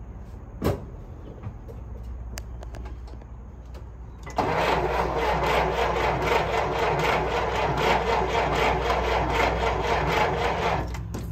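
1937 Plymouth's 201 cubic inch flathead six running. About four seconds in it suddenly gets much louder, holds there for about six seconds, then drops back near the end.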